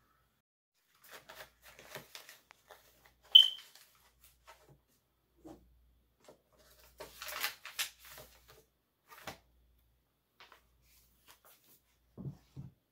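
Rustling and handling noises: scattered scuffs and clicks with a denser patch of rustling midway. A short, high squeak comes about three and a half seconds in and is the loudest sound, and a few low thumps come near the end.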